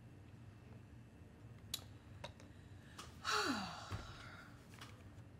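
A person sighing once about three seconds in, a breathy exhale whose pitch falls, over a low steady hum with a few faint clicks before it.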